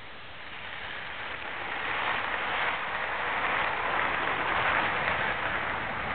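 Model train running past on the layout's track: a steady whirring rush of motor and wheels that swells over the first two seconds and eases a little near the end.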